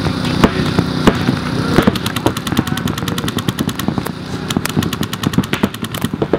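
Paintball markers firing. There are a few single shots, then a rapid string of about ten shots a second from about two seconds in until near the end.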